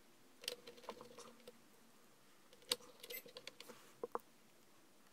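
Light, scattered clicks and small scrapes of a small screwdriver against screws and the laptop's chassis as screws are refitted, the sharpest click about two and a half seconds in and a quick pair about four seconds in.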